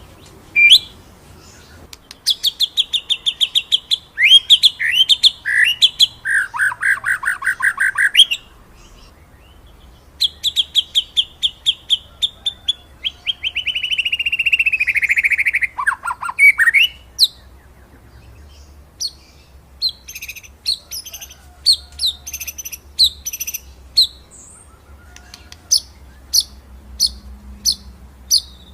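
White-rumped shama (murai batu) singing: fast rolls of rapidly repeated whistled notes, with a long falling run around the middle, then a string of short, sharp separate notes (the 'rolling' and 'shooting' song) in the second half.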